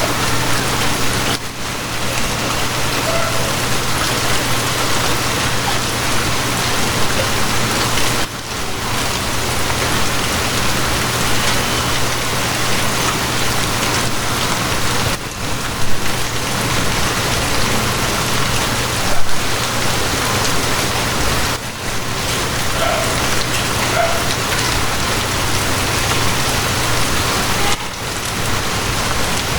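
Steady heavy rain falling on a surface, over a low steady hum. The level dips briefly every six seconds or so, and two short louder moments come past the middle.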